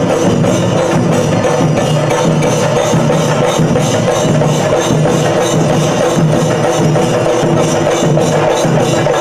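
Chenda melam: a group of chenda drums beaten with sticks in a fast, dense, unbroken rhythm, loud and steady throughout.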